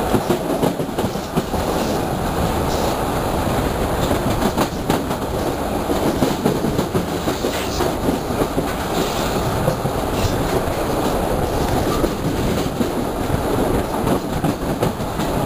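Vitória–Minas Railway passenger train running along the line, heard from an open carriage window: a steady rolling rumble with irregular clicks and clatter of the wheels over the track.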